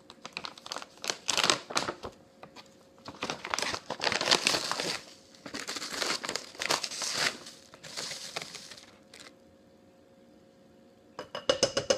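Crinkling and rustling of a stand-up pouch of coconut palm sugar being handled and tipped over a crock pot, in irregular bursts that stop about nine seconds in. A brief burst of handling noise follows near the end.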